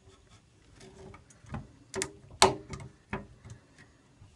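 A string of small clicks and knocks from the AED cabinet's alarm box and plastic backplate being handled and fitted onto the mounting plate, the sharpest click about halfway through.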